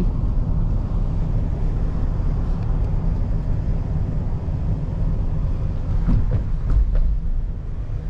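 Car rolling slowly with its side window open: a steady low rumble of wind and road noise, with a couple of faint clicks about six seconds in.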